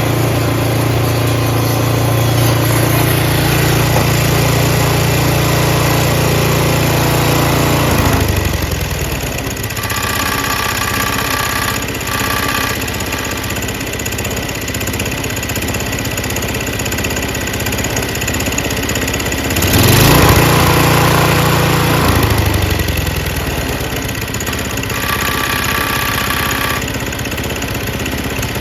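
A 5.5 hp Tecumseh Snow King single-cylinder engine on a two-stage snowblower running steadily with its freshly cleaned carburetor. It settles to a lower, quieter speed about eight seconds in and speeds up briefly around twenty seconds. A high whine comes and goes twice. After a quarter-turn idle-screw adjustment it runs just fine.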